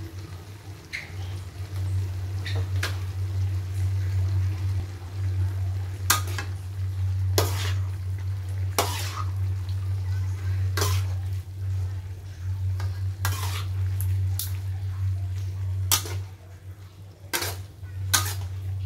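A metal spatula scraping and clanking against a steel wok while vegetables are stir-fried. The strokes are light at first and then sharp, about every one to two seconds, over a steady low hum.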